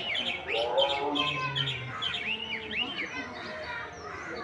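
A flock of small birds chirping: many short, arching chirps, repeated and overlapping.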